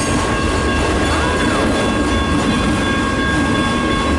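Freight train cars rolling past close by: a steady, loud rumble of wheels on the rails, with a thin steady squeal from the wheels above it.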